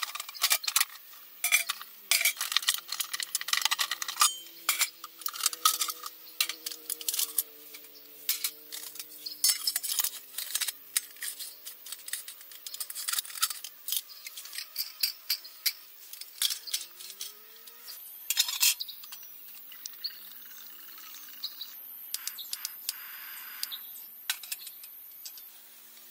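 Aluminium pots, lids and windshield of a Trangia Storm Cooker set clinking and clanking as they are taken apart and fitted together: many sharp metallic knocks, some quick runs of them. Near the end a steady splashing hiss, as of water poured into a pot.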